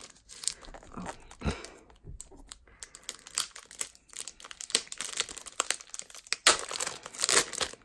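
Thin plastic shrink wrap on a small planner crinkling and crackling irregularly as fingers pick at and peel it open, loudest near the end.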